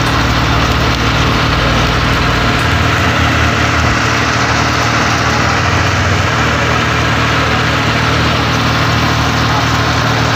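A motor running steadily, a constant low hum under an even hiss.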